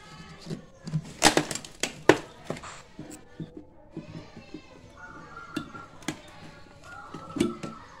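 Sharp plastic knocks and clicks as a refrigerator's plastic freezer fan-cover panel is handled and worked loose, two loudest about a second and two seconds in, with lighter taps later.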